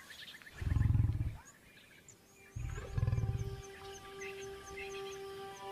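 Male lion growling twice over its kill, two low rumbling growls of about a second each. Soft music with long held notes comes in after the second growl.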